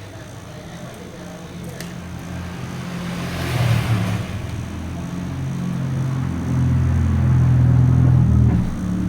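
A motor vehicle's engine running, its low hum stepping in pitch and growing louder, with a short hiss about three and a half seconds in.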